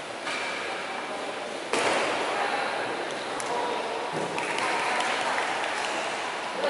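Spectators in an echoing sports hall applauding and calling out, the noise rising suddenly about two seconds in and staying up.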